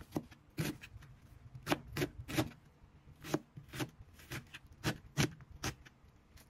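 Chef's knife dicing an onion on a plastic cutting board: about a dozen uneven chops, often coming in quick twos and threes.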